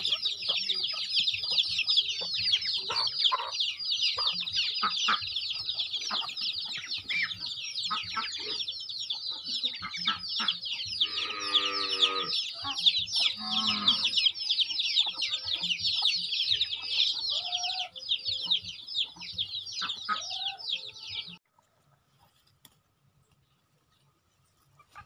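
Chickens in a poultry yard: a constant chorus of high chick peeping with scattered clucks, and a longer pitched call about halfway through. The sound cuts off abruptly about four seconds before the end, leaving near silence.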